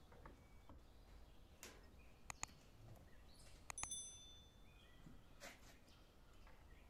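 Near silence with faint bird chirps. About two seconds in there are two quick soft clicks, and near the middle a click followed by a short bright bell ding: the click-and-notification-bell sound effect of a subscribe-button animation.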